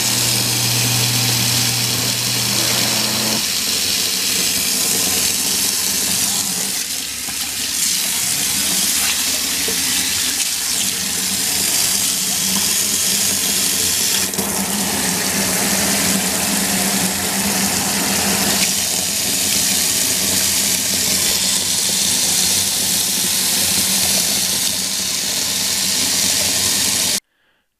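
Water running from a faucet into a plastic utility sink, a steady stream splashing onto the basin floor by the drain. A low hum sits under it for the first few seconds, and the sound cuts off suddenly near the end.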